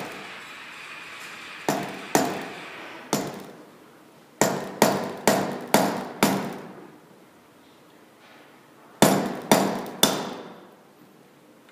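Hammer blows on a handled seal driver, driving a new crankshaft oil seal into a two-stroke engine crankcase. About a dozen sharp taps, each with a short ring, come in three bursts: a few spaced taps, then five quick ones, then three more near the end. The blows are consistent and even all the way around as the seal goes in square.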